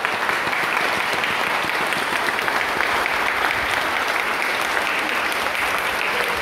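A crowd applauding: many people clapping at once, steady and sustained.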